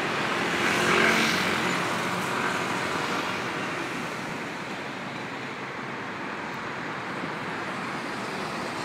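Street traffic noise, with one vehicle going past close by about a second in, then steady traffic in the background.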